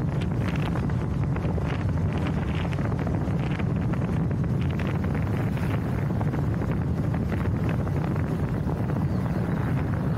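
Wind rushing over the microphone of a camera mounted on a moving bicycle, a steady low rumble with light irregular buffeting.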